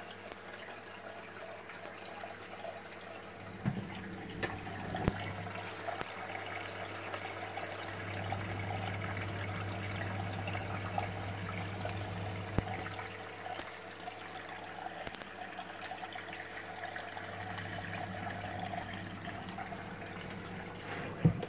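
Water splashing and trickling steadily through a ClariSea fleece roller filter into an aquarium sump, over a constant low hum. A few light knocks come in around four to five seconds in and again near the middle.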